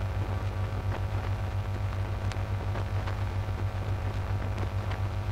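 Vinyl record playing the blank groove between tracks: a steady low hum with scattered faint clicks of surface noise.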